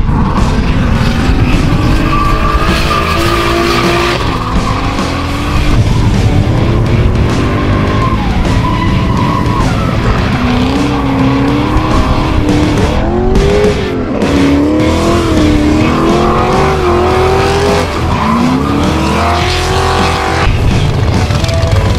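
Drift cars sliding with tyres squealing, their engines revving up and down in repeated rising and falling sweeps, over background music.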